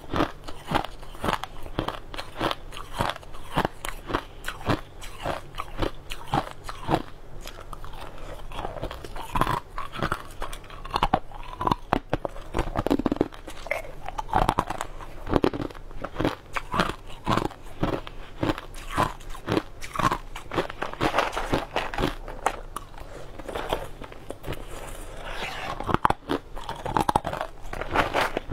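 Crushed ice being bitten and chewed, a continuous run of sharp crunches.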